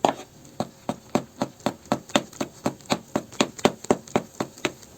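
A utensil knocking rhythmically against a bowl, about four clicks a second, as a thick kefir-and-flour batter is stirred.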